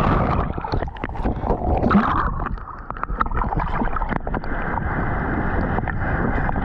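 Seawater sloshing and splashing around a camera held at the surface in choppy surf, with breaking waves, the water noise briefly dropping away about two and a half seconds in.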